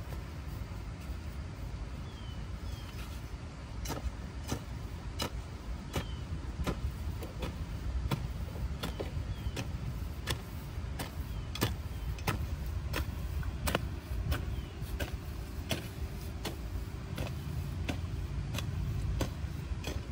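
A digging tool striking and cutting into soil again and again, widening a tree-planting hole, in sharp irregular knocks about one a second over a steady low rumble.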